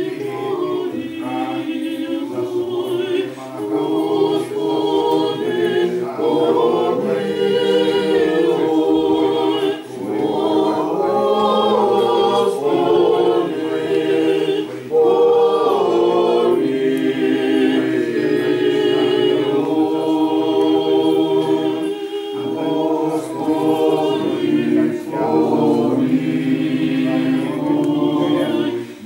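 Church choir singing unaccompanied in Russian Orthodox liturgical chant, several voices in harmony, with short breaths between phrases.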